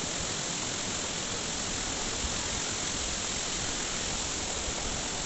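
Steady rushing water noise, an even hiss with no breaks.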